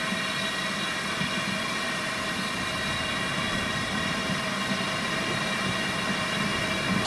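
BR Standard Class 4 2-6-4T steam tank locomotive No. 80080 standing with steam escaping: a steady rushing hiss with a thin whine running through it, and no exhaust beats.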